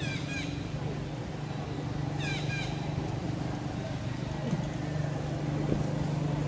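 Outdoor background with a steady low hum, broken by two short bursts of high chirping notes, one right at the start and one about two seconds later.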